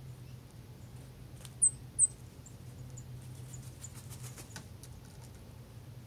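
Small songbirds calling: two sharp, very high chirps in quick succession about one and a half to two seconds in, followed by several fainter high chips and a scatter of light ticks.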